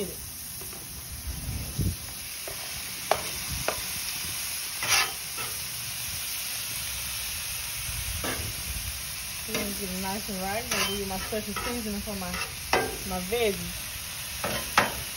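Pork steaks, country ham and sliced vegetables sizzling on a Blackstone flat-top griddle, with a metal spatula and wooden paddle scraping and clacking on the steel cooktop several times. A brief wavering pitched sound comes about ten seconds in.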